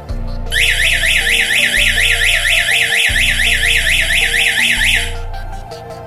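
12 V DC siren of a light-sensor alarm sounding a rapid electronic wail, about five rising-and-falling sweeps a second, for about four and a half seconds before it cuts off: the alarm set off by torch or lamp light on its light sensor. Background music plays underneath.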